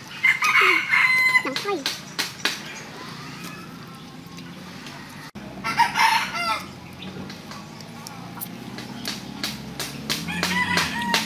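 A rooster crowing, once within the first second and again about six seconds in, with further fowl calls near the end. Sharp clicks and smacks of someone chewing chicken feet close to the microphone come in between.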